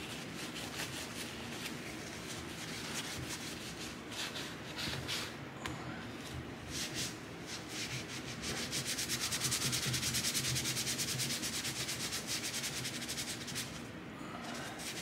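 A cleaning wipe scrubbing the body of a Milwaukee 3/8-inch stubby impact wrench. Irregular rubbing strokes turn into quick, steady back-and-forth scrubbing for several seconds past the middle, then ease off again.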